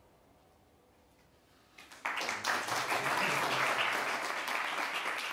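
Near silence, then about two seconds in an audience starts applauding and keeps clapping.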